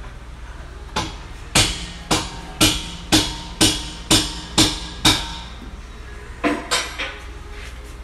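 Hammer blows on metal, about two a second, nine in a row, each with a short ring. After a pause come three quicker blows.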